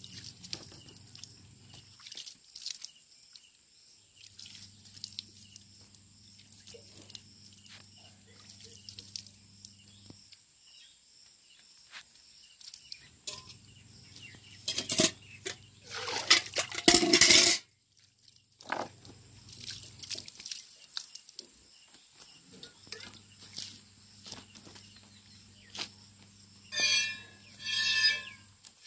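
Cow being hand-milked, jets of milk squirting one after another into a steel pail as short hissing strokes. A louder burst of noise comes a little past halfway, and two short pitched calls sound near the end.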